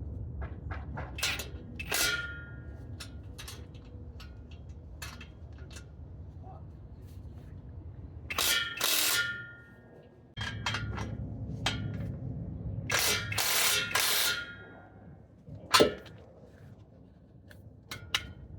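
Ratchet wrench with a 15 mm socket tightening the nuts of an exhaust clamp on a muffler: scattered clicks and two short runs of rapid ratchet clicking, with a few ringing metal clinks near the start. A low steady hum sits underneath.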